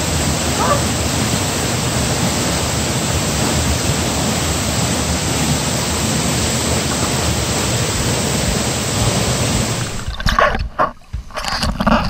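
Waterfall pouring into a plunge pool: a steady rush of falling water. About ten seconds in the sound cuts abruptly to uneven splashing and gurgling as the microphone dips into the water.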